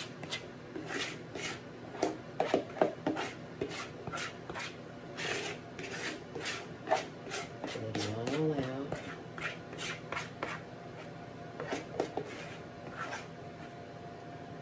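A spoon scraping thick cornbread batter out of a mixing bowl into a cast iron skillet, in repeated short scrapes.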